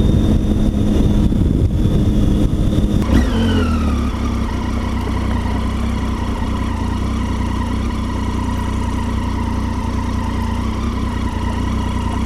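Triumph Tiger 800 XC's three-cylinder engine running under way, with wind noise. About three seconds in the revs fall quickly, and the engine settles into a steady lower note.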